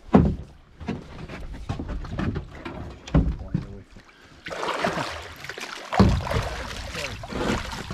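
A tope thrashing at the surface as it is scooped into a landing net, churning the water. The splashing starts about four and a half seconds in and is loudest about six seconds in, with sharp knocks just after the start and about three seconds in.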